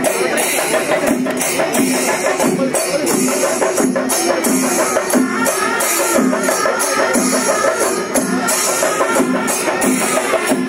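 A Kerala temple percussion ensemble playing loudly, with cylindrical chenda drums beating a steady, repeating rhythm under constant clashing of hand cymbals.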